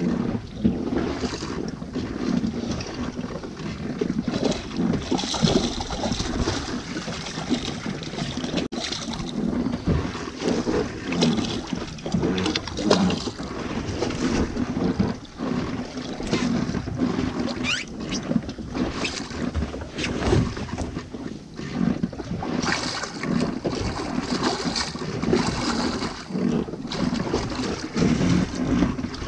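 Wind and water noise aboard a small boat at sea, with wind buffeting the action camera's microphone in uneven gusts.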